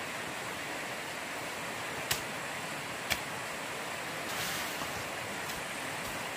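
Steady rushing of water, with two sharp knocks about a second apart near the middle.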